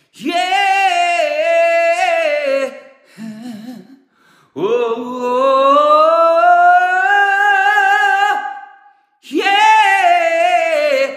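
A man singing a cappella in a high rock-vocal register, with no accompaniment. Three sung phrases with a vibrato wobble on the notes; the middle one is a long held note that rises slowly in pitch.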